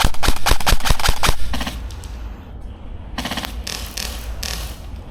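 Airsoft gun firing a rapid string of about ten sharp shots in the first second and a half, followed later by a few softer noisy bursts.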